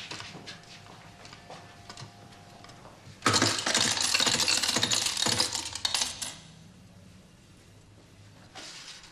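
A loud, dense clatter of many coins that starts about three seconds in and lasts about three seconds.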